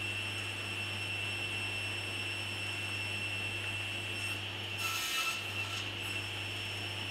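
A 1¾ hp table saw running steadily with a faint high whine. About five seconds in, the blade crosscuts a board on a crosscut sled in a short burst of sawing noise lasting about half a second.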